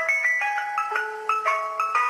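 Ice cream truck jingle: a bright, chiming melody of quick ringing notes, like a glockenspiel or music box.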